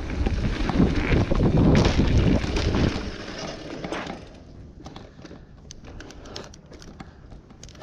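Wind rushing over the microphone of a mountain bike rider moving at speed, dying away about three seconds in as the bike slows. After that come quieter tyre noise on the trail and scattered light clicks.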